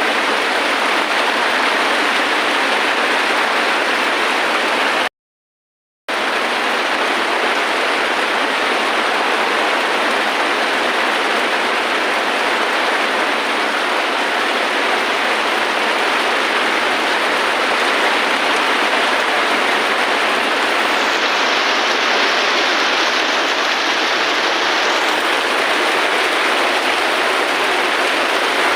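Steady rain. It cuts out completely for about a second around five seconds in, then resumes unchanged.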